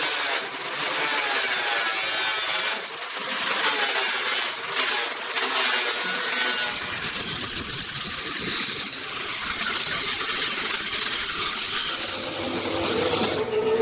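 Abrasive cutting of steel: an angle grinder's cut-off disc grinding through a steel bar, a steady, high, hissing grind. About halfway through the sound gets fuller and deeper, fitting an abrasive chop saw cutting through steel pipe.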